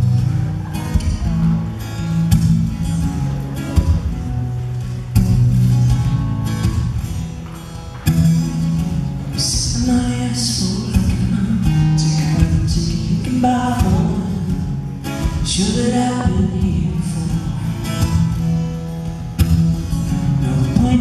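Acoustic guitar playing a song's opening. A man starts singing along with it about halfway through.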